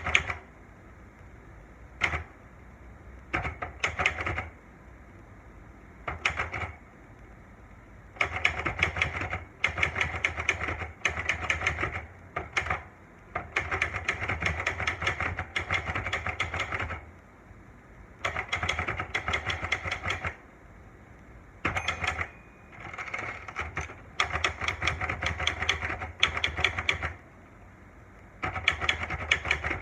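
Olivetti Lettera 92 manual portable typewriter being typed on: quick runs of keystrokes, each run lasting one to three seconds, separated by short pauses.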